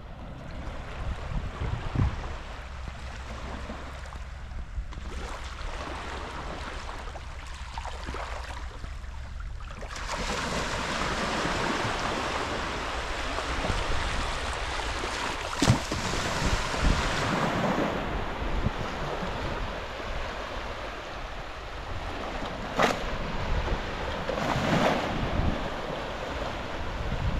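Small Black Sea waves lapping and washing over a sandy shore, with a steady low rumble of wind on the microphone. The wash grows louder about a third of the way in, with a few sharper splashes of breaking wavelets in the middle and near the end.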